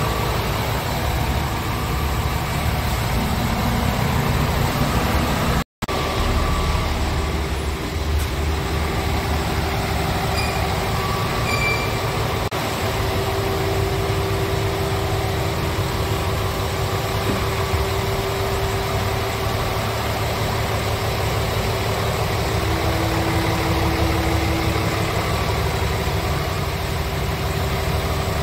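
Scania R450 truck's 13-litre six-cylinder diesel idling steadily. The sound is cut off by a brief gap about six seconds in.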